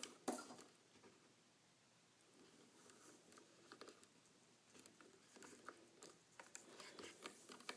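Faint rustling and soft scattered clicks of 550 paracord being handled and woven by hand, with one sharper click just after the start.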